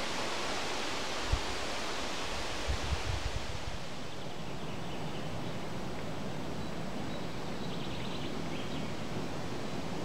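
Wind blowing through the riverside trees and reeds: a steady rustling hiss, with a few low thumps of wind striking the microphone about a second in and again around three seconds in.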